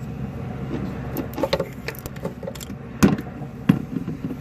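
Scattered clicks and knocks of hands and metal parts being handled in a car's engine bay, with two sharper knocks about three seconds in, over a steady low hum.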